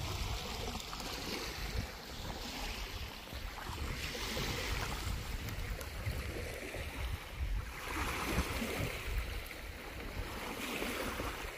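Wind buffeting the microphone over washing water, a rumbling gusty noise with a hiss that swells and fades every couple of seconds.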